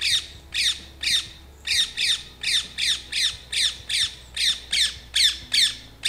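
Rose-ringed parakeet calling over and over: short, shrill calls, each falling in pitch, about two or three a second, with one brief pause about a second and a half in.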